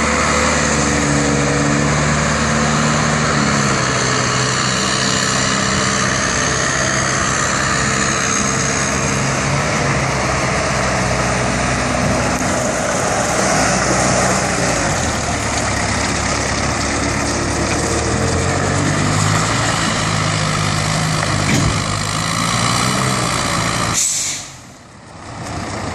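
Carelift Zoom Boom 10056 telehandler's diesel engine running as the machine drives and turns. Its pitch falls about halfway through and rises again a few seconds later. Near the end there is a short sharp noise, then the sound briefly drops away.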